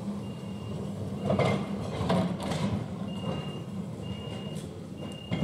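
Melbourne tram No. 103 rolling slowly along the track with a low hum and a few loud clunks from the wheels and running gear. A short high beep repeats about once a second.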